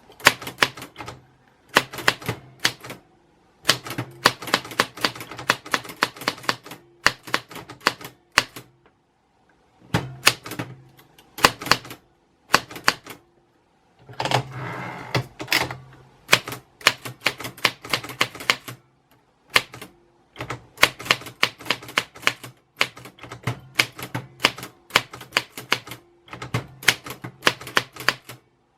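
Typewriter keys being struck in quick runs of clicks, with short pauses between words and lines. About halfway through there is a longer continuous rasping stretch of about a second and a half.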